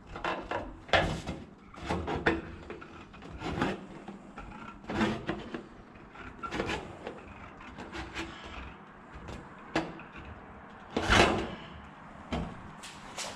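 Aluminum wrap (trim coil) being cut by hand along a marked line: a series of short, irregular cutting strokes, about a dozen, unevenly spaced.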